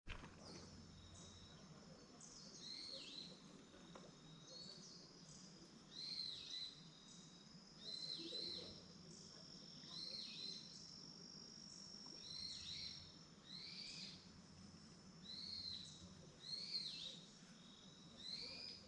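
Faint outdoor animal calls: a short call repeated about every two seconds over a steady high-pitched trill.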